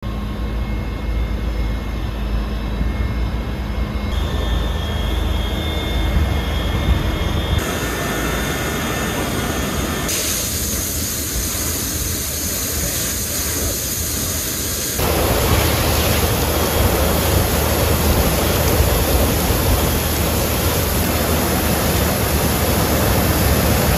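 Steady running noise of fire engines and their pumps, shifting abruptly several times, with the hiss of fire hoses spraying water at close range growing louder from about fifteen seconds in.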